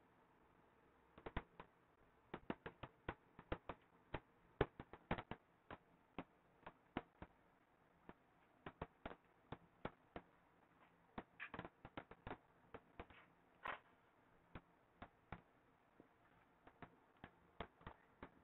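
Near silence broken by scattered small, sharp clicks and taps at irregular intervals, some coming in quick runs of several.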